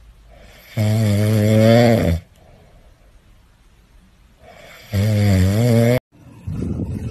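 Siberian husky snoring while asleep on its back, two long, loud snores about four seconds apart with quiet breathing between.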